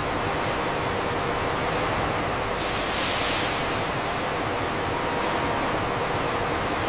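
Steady running noise of industrial machinery, with a short burst of hissing about two and a half seconds in that fades over about a second.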